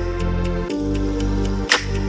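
Background music: sustained chords over a deep bass, with light, regular ticking percussion and a bright hit near the end.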